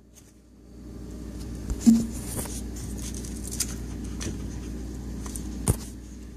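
Several light clicks and knocks from a white plastic push-pull water shut-off valve being pushed in to turn on the water to a refrigerator's ice maker line. The strongest knocks come about two seconds in and near the end, over a steady low hum.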